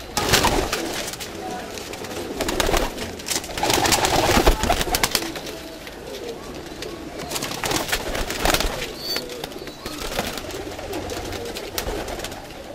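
Domestic pigeons cooing, with several loud bursts of wing-flapping and scuffling on the perches, the loudest about four seconds in.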